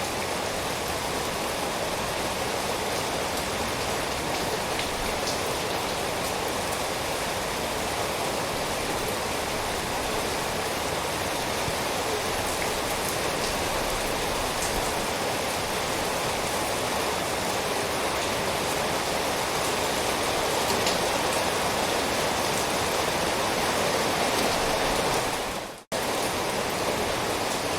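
Steady heavy rain: a dense, even hiss with scattered drop ticks. Near the end it fades out abruptly to near silence for a split second, then comes straight back.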